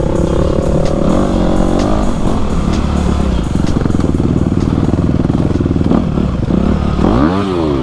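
Dirt bike engine running under load on a trail, its pitch climbing over the first two seconds, then steady. Near the end it revs up sharply and falls back as the gearbox kicks into neutral crossing water.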